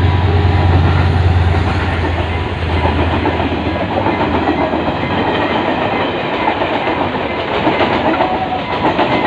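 Passenger train passing close by at speed. In the first two seconds or so a diesel-electric locomotive's engine hums low and steady, then the coaches rush past with wheels clattering over the rail joints.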